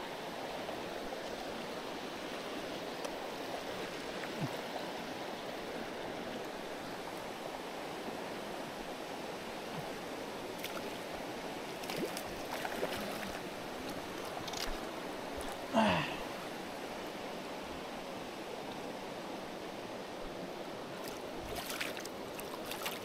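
Steady rush of a shallow, rocky river running over riffles, with a few small splashes and knocks as a hooked trout is played and netted. The loudest is a brief splash about sixteen seconds in.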